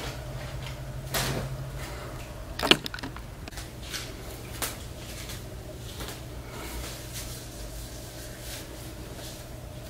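Room tone with a steady low hum and a few scattered light knocks and clicks, the sharpest about three seconds in.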